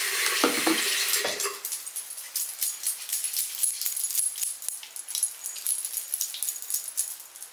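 Bathroom faucet running with a steady hum, with two short squeaky whines in the first second and a half, then the water shuts off. After that comes a soft wet crackling and squishing of face cleanser being rubbed over the face with the hands.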